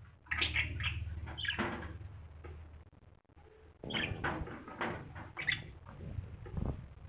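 A pet bird making sounds in two bouts, the first starting just after the beginning and the second about four seconds in.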